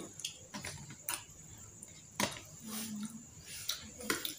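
Eating sounds at a table: scattered light clicks and taps of metal forks spearing fried fish balls and kikiam from a plastic container and off a banana leaf, with mouth sounds of chewing and a brief low hum about two and a half seconds in.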